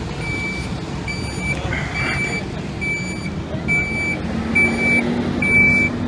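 Vehicle backup alarm beeping steadily, about one beep a second, over a low engine rumble.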